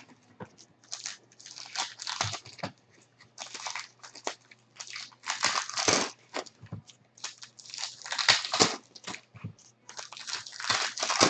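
Trading-card packs and cards being handled: irregular crinkling and rustling of wrappers and cards sliding, in short bursts with brief pauses.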